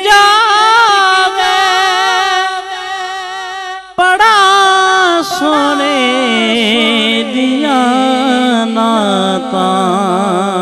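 Male voice singing a drawn-out, wordless melismatic line of a Punjabi naat, the pitch wavering in ornaments. The line breaks off sharply about four seconds in, then resumes and settles onto a lower, steadier held note.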